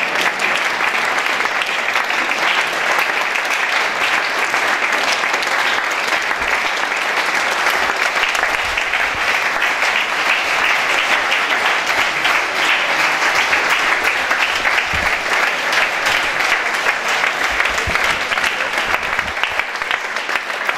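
Audience applauding: many hands clapping in a steady, continuous ovation.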